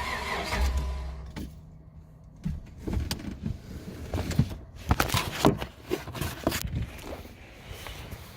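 2009 Dodge Charger SXT cranking without firing, the crank-no-start fault; the cranking stops about a second in. Then a few seconds of scattered clicks and knocks.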